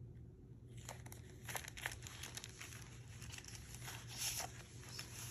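Faint rustling and crinkling of paper as a card and a tag are handled and slid out of a journal pocket, a string of small scratchy rustles and ticks starting about a second in.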